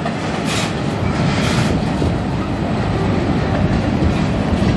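Freight cars of a Canadian National manifest train rolling past, flatcars and then a boxcar: a steady rumble of steel wheels on the rails, with two short high hisses in the first two seconds.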